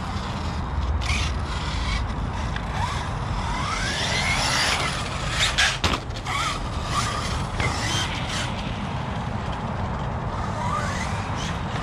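1/8-scale ARRMA Notorious RC basher truck's electric motor whining up in short rising bursts as it accelerates, over a steady noise. A few sharp clacks about halfway through, typical of the truck landing or hitting the ground.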